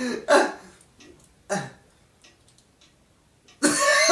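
A man gagging and coughing as if choking, with a short sound that slides down in pitch about a second and a half in, then loud laughter and voices from near the end.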